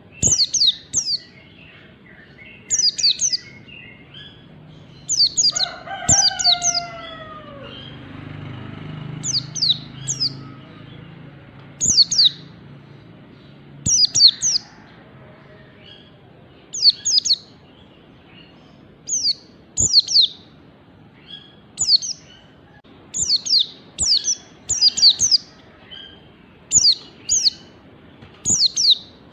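White-eye (pleci) calling in short, high, down-slurred chirps, in clusters of two or three notes repeated every second or two. A single lower, falling call sounds about six seconds in.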